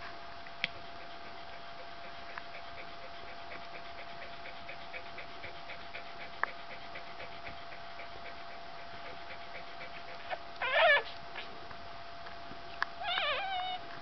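Two-day-old white keeshond puppies squealing while nursing. There is one short, wavering squeal just before the last few seconds, then a longer, wobbling one near the end, over faint soft clicks.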